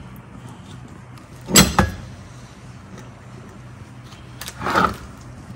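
Two brief clatters about three seconds apart, the second one longer, as a brake caliper bracket is handled among wrenches on a workbench, over a faint steady hum.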